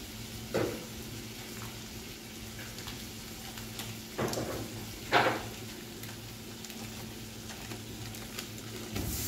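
Butter melting and sizzling in a pot on the stove, over a steady low hum. Three short knocks or scrapes of a utensil against the pot come about half a second, four and five seconds in.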